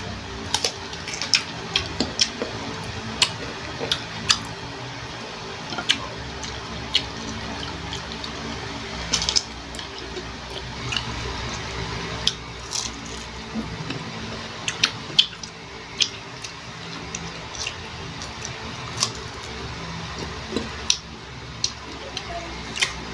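Close-miked eating of raw green Indian mango slices: irregular sharp crunches and wet chewing and mouth clicks, about one or two a second.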